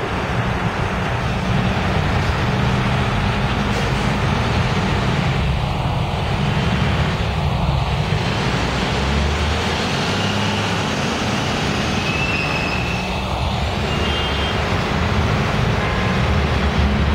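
Diesel engines of NJ Transit commuter coaches running in street traffic, with cars and a pickup truck passing; a steady low engine drone with road noise over it.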